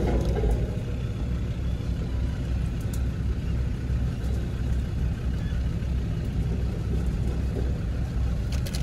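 Land Rover Discovery Td5's five-cylinder turbodiesel running as the vehicle drives, a steady low rumble.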